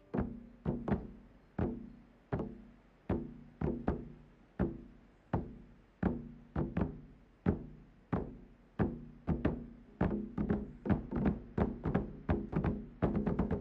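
Drum music: single pitched drum strokes, each ringing and dying away, at first about one every 0.7 s and then coming faster and faster until, near the end, they run together into rapid beating.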